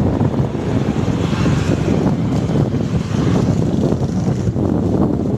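Steady loud wind rumble on the microphone of a rider moving along a road, mixed with road and traffic noise.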